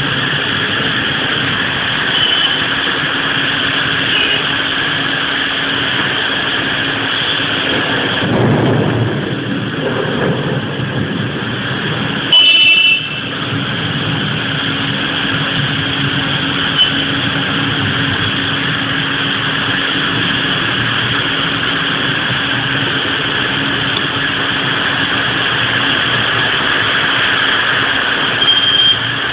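Heavy rain pouring steadily, with road traffic moving on the wet street beneath it. A low rumble swells for about two seconds around eight seconds in, and a short loud burst cuts through just before halfway.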